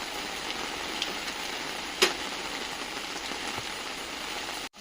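Steady hiss of rain falling, with one sharp knock about two seconds in.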